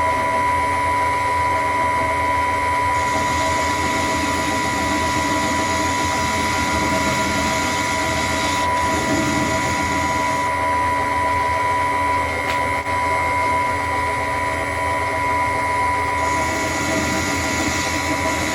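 Myford Super 7 lathe running with a steady whine while taking light cuts on EN8 steel; a cutting hiss swells and fades a few times.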